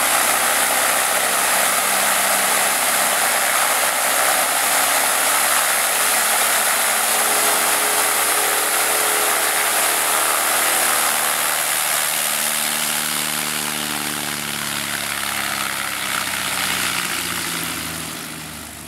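Cessna 170B's six-cylinder Continental engine and propeller running as the taildragger taxis past close by, then fading in the last few seconds as it moves away.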